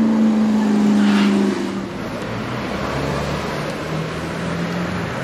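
McLaren supercar's twin-turbo V8 running with a steady drone as it drives off. Just under two seconds in it gives way to a Mercedes-AMG GT Black Series' twin-turbo V8 pulling away on a lower note, with street noise.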